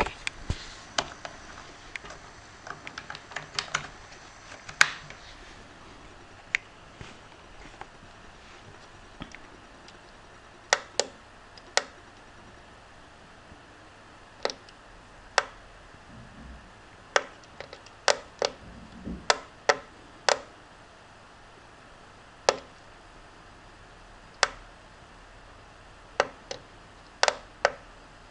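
Small tactile push-buttons on a breadboard clicking as a finger presses them: sharp separate clicks, some single and some in quick pairs, at irregular intervals. The first few seconds hold a cluster of smaller clicks and rustling from handling.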